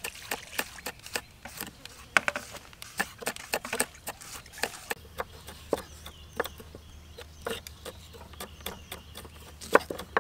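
Knives chopping red chilies on a round wooden chopping board: quick, irregular knocks several times a second. From about halfway, several knives chop at once on wooden boards, with one sharper knock near the end.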